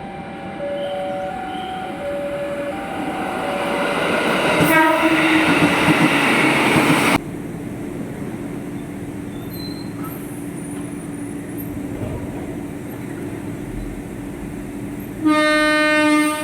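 KRL Commuterline electric commuter train horn: alternating two-note tones, then the noise of a train passing, which grows louder and cuts off suddenly about seven seconds in. Near the end comes one loud horn blast lasting about a second.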